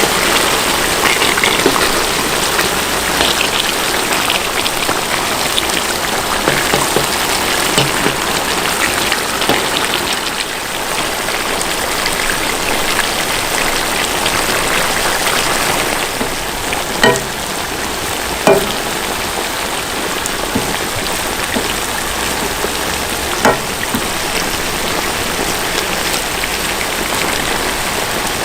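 Steady sizzling hiss of food cooking in a pot over a campfire, with three short knocks in the second half.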